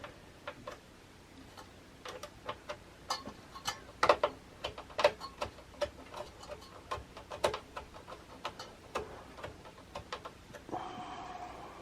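Irregular light clicks and taps of small metal parts being handled on a motherboard: an M.2 SSD heatsink cover and its tiny screws being positioned and fastened, with a few louder knocks among them.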